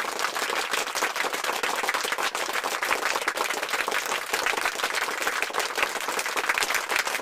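A crowd applauding, many hands clapping at a steady level.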